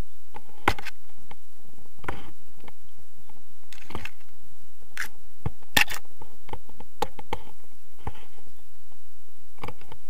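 Irregular knocks, clicks and rustles from a pole-mounted action camera and the harness straps jostling in flight, over wind on the microphone.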